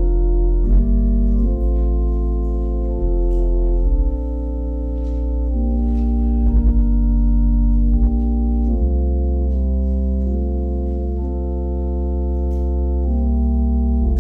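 Organ playing slow sustained chords over a held deep bass, the chords changing every second or two.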